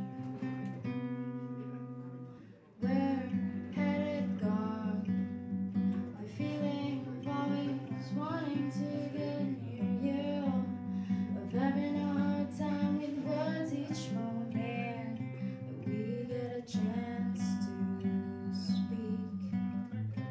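Two steel-string acoustic guitars strumming and picking together, with a woman singing over them. About two and a half seconds in the playing fades almost away, then the guitars come back in with a strong strum and the singing starts.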